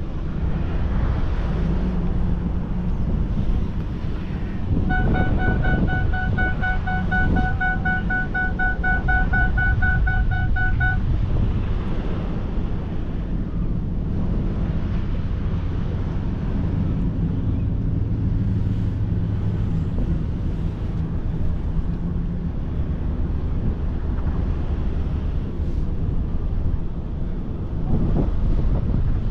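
A vehicle driving slowly over beach sand, heard from inside the cabin: steady engine and tyre rumble. From about five seconds in, a high, rapidly pulsing beep sounds for about six seconds.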